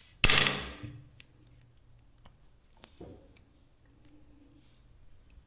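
Wallpaper being cut with scissors: one long snip about a quarter second in, then a few faint light clicks.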